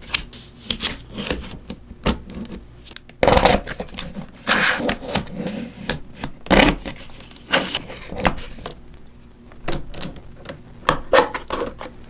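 Small magnetic balls clicking and snapping together as they are handled, in irregular sharp clicks with a few brief rattling clusters.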